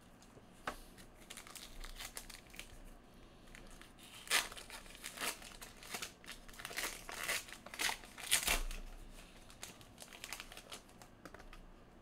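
Shiny foil wrapper of a Panini Elite basketball card pack being torn open and crinkled by hand. An irregular run of crinkles and tearing sounds, loudest in the middle and thinning out near the end.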